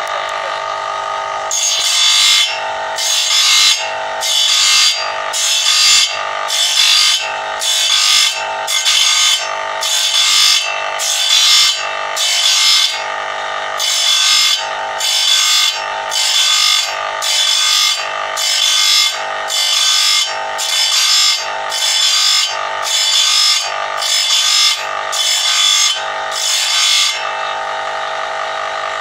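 Electric motor-driven grinding wheel running steadily while the teeth of a bandsaw blade are ground one at a time: a rhythmic series of harsh grinding bursts, about one a second, over the motor's hum. The grinding stops near the end and the wheel runs on alone.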